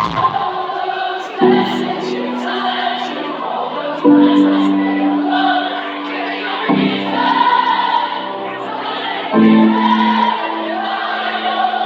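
Live rock band performance: held chords that change about every two and a half seconds, with singing over them.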